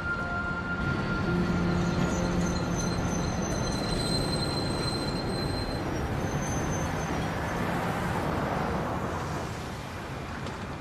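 Tram running on its rails: a steady rumble with a faint high squeal from the wheels.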